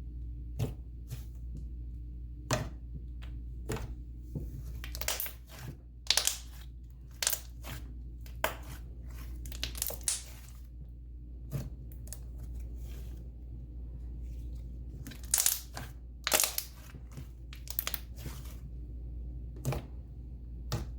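Slime being handled by hand, giving irregular crackles, pops and small tearing sounds, in clusters, over a low steady hum.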